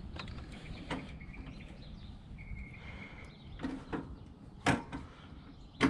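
A few sharp clicks and knocks from handling a Yamaha V Star 1100 motorcycle as it is shifted into neutral before starting, the loudest about three-quarters of the way through and another right at the end, over a steady low rumble, with the engine not yet running. A short, steady high tone sounds about two and a half seconds in.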